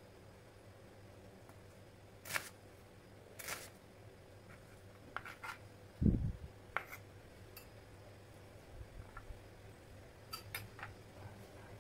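Kitchen knife cutting red onion on a plastic cutting board: scattered sharp taps of the blade meeting the board, with one duller, louder thud about six seconds in and a few light clicks near the end. A faint steady hum runs underneath.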